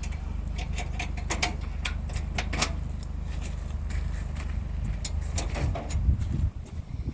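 A vehicle's engine running with a steady low drone, with scattered light clicks and knocks over it; the drone breaks up about six seconds in.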